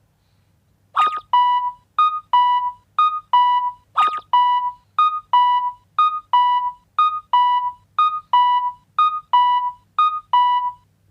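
Synthesized Japanese railroad crossing alarm (kan-kan) ringing: a short higher ding and a longer lower ding alternate in steady repeating pairs, each tone fading away. It starts about a second in and stops just before the end, where a quick rising whistle-like sweep follows.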